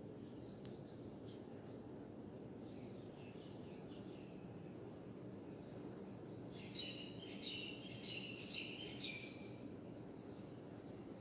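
Small birds chirping over a steady low background noise, with a busier run of quick chirps a little past halfway.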